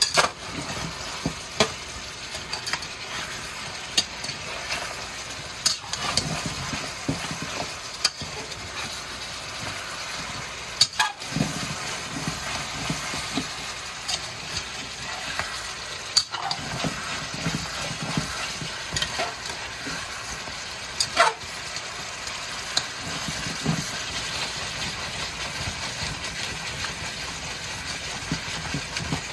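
Pieces of turkey neck sizzling as they sear in a pan, stirred and turned with a fork and a slotted spatula, with sharp clinks of the utensil against the pan every few seconds.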